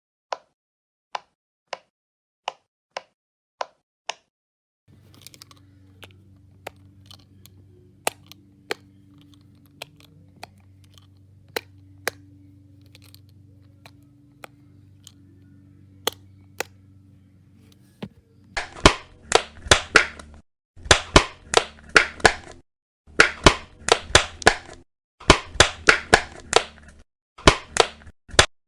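Fidget toys clicking: single sharp clicks about once every second or so, then, about two-thirds of the way through, fast runs of clicks in several groups with short pauses between them. A low steady hum sits under the middle stretch.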